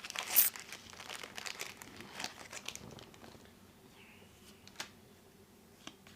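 Foil booster-pack wrapper crinkling and being torn open, busiest in the first three seconds with a loud rip near the start, then a few small ticks as it settles.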